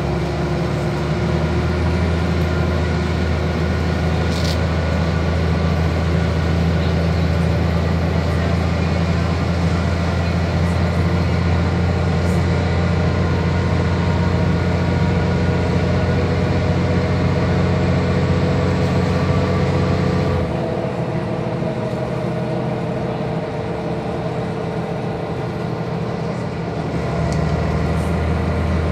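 Van Hool AG300 articulated bus's diesel engine pulling steadily at road speed, heard from inside the passenger cabin as a low, even drone. About twenty seconds in the drone falls away to a quieter hum, and it comes back near the end.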